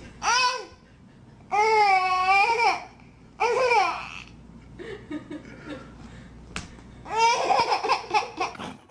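A baby laughing and squealing in four high-pitched bursts, the longest over a second. The last burst, near the end, breaks into quick pulses of laughter.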